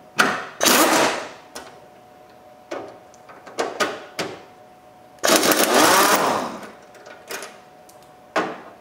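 Pneumatic impact wrench running in short bursts as it spins out 13 mm bolts. The two longest bursts, about a second each, come about half a second in and about five seconds in, with several brief blips between.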